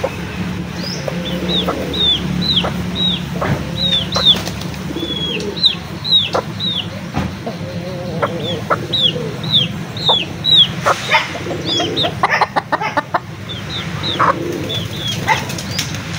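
Chickens pecking at grain on concrete: a run of high, short, falling peeps, two or three a second, with scattered pecking taps. A dense cluster of sharp taps and scuffles comes about two-thirds of the way through.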